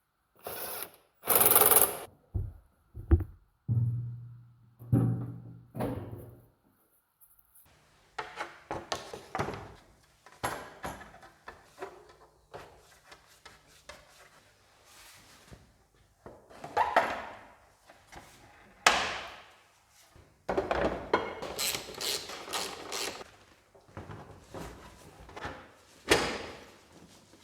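Irregular clunks, knocks and rubbing sounds of hands working on the motorcycle, with a brief low hum a few seconds in.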